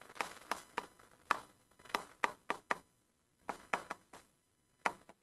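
Stylus tapping and scratching on the glass face of an interactive touchscreen board while a word is handwritten: a dozen or so short, irregular taps, with a short pause in the middle.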